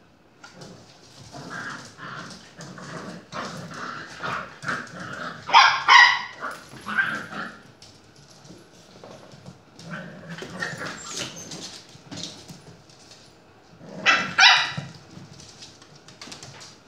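Young puppies yapping and barking while they play, in short bursts throughout, loudest about six seconds in and again about fourteen seconds in.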